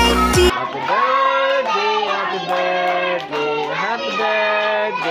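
Recorded pop music with a heavy beat cuts off about half a second in; then a group of children sing together, with hand clapping.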